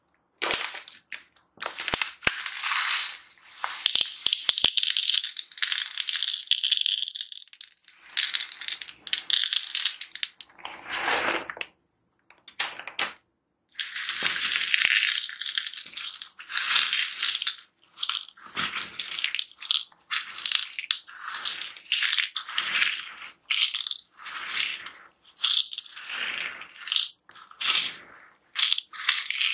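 Small white beads are poured into clear slime in a bowl, giving a continuous high, hissing patter for the first several seconds. Then hands knead and squeeze the beaded slime, giving irregular short crunches with brief pauses between them.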